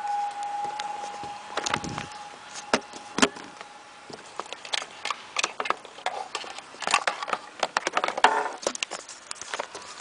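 Wheelock electric bell's ringing tone dying away just after the bell stops, fading out over about four seconds, then scattered clicks and knocks, the loudest about three and eight seconds in.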